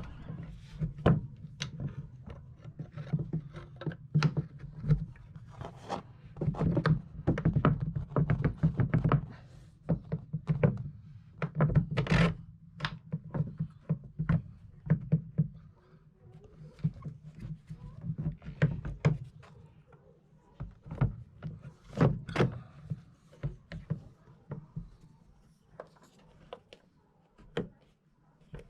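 Irregular knocks, taps and thunks from hand work fitting a port light into a boat's cabin, with a steady low hum under the first half that stops partway through.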